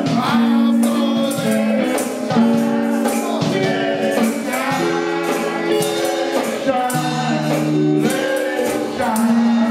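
Gospel music: singing voices over held chords, with a tambourine keeping a steady beat.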